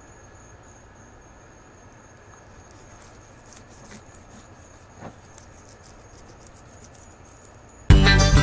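Faint crackly ticks and a couple of soft knocks as a fillet knife cuts along a lane snapper's scaly skin on a plastic cutting board; near the end, loud guitar music starts abruptly.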